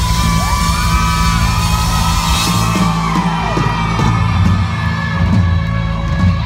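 Live rock band holding a chord, with sliding high notes over the steady bass and guitar, while the crowd whoops and yells.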